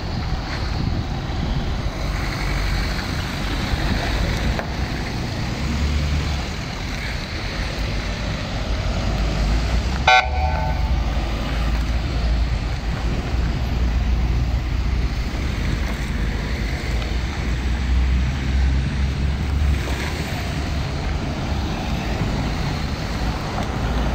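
Light vans and a police car pulling out and driving past one after another, their engines a low rumble throughout. One short car-horn toot sounds about ten seconds in.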